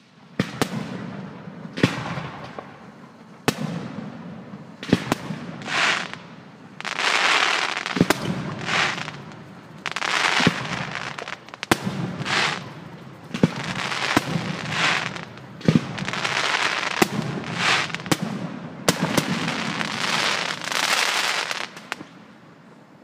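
Aerial fireworks display: shells bursting with sharp bangs every second or two, many followed by about a second of hissing crackle, over a low rumble. The bursts thin out shortly before the end.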